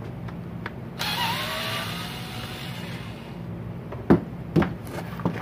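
Ryobi cordless drill running for about two seconds, starting about a second in, its motor whine rising in pitch as it drives out a screw on the weed eater's clutch housing. Three sharp knocks follow near the end.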